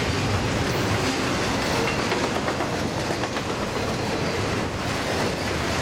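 Double-stack intermodal well cars loaded with containers rolling past at speed: a steady, even rumble of steel wheels on rail.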